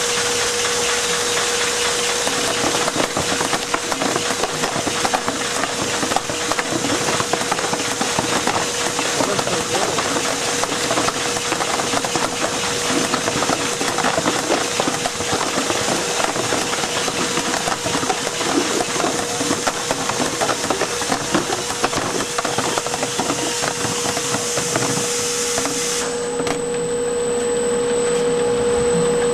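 Container overcapping and labeling line running: continuous rattling and clattering of the overcapper and the plastic containers on the conveyor, over a steady machine hum. About 26 seconds in, the clatter stops, leaving only the steady hum and a faint high whine.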